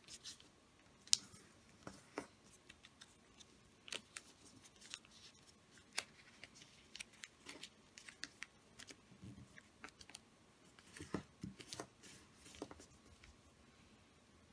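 A sheet of origami paper being folded and creased by hand, edges brought in to the centre line. The paper gives faint, irregular crinkles and crackles, with a thicker run of crisper crackles about three-quarters of the way through.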